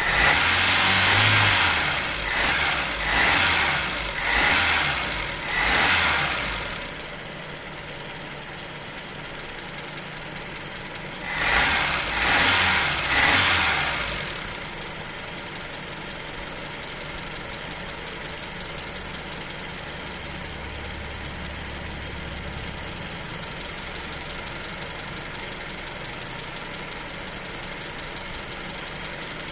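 Car engine running at idle after its ignition timing has been reset at the distributor, revved in a series of short blips in the first seven seconds and again about eleven seconds in, settling back to a steady idle between and after.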